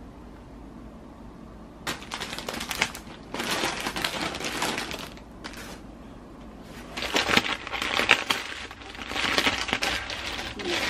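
Plastic bags and packaging crinkling and rustling as items are handled and lifted out of a bag. It starts about two seconds in, with a brief pause midway.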